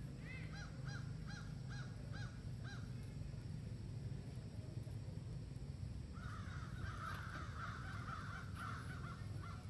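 Baby monkey calling: a run of about six short chirps, roughly two a second, then a longer drawn-out cry from about six seconds in.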